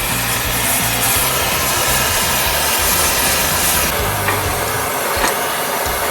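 Background music over a steady loud hiss of metalworking, which eases about four seconds in, followed by two sharp clicks.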